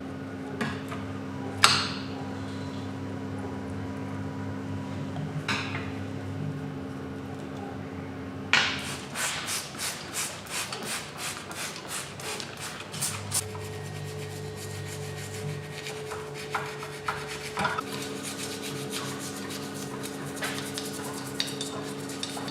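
Hand-tool work on metal engine parts: two sharp knocks, then from about eight seconds in a run of quick rasping strokes lasting several seconds, followed by a few more scattered knocks, over a steady low hum.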